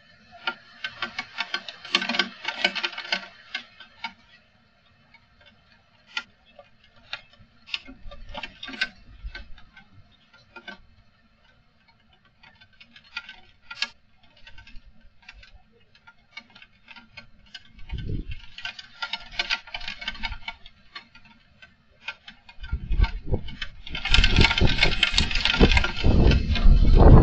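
Strong wind gusting in surges, with dense rattling and clicking of things shaken by it. The longest and loudest gust, starting a few seconds before the end, brings a heavy low rumble of wind buffeting the CCTV camera's microphone.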